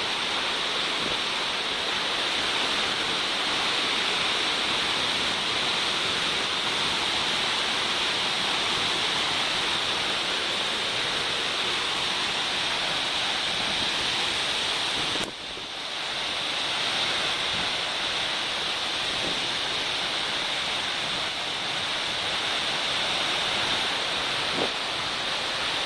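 The Karakaya-Su waterfall rushing and crashing in a steady, loud roar of falling water, briefly dipping about fifteen seconds in.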